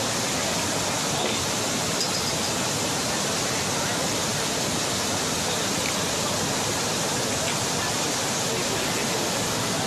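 Steady rush of a rain-swollen, flooding mountain river, muddy white water pouring fast over rocks.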